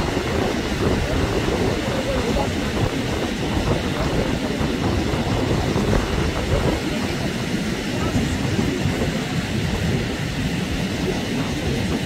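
Steady low noise of wind on the microphone and breaking surf along a sandy shore, with no distinct bird calls standing out.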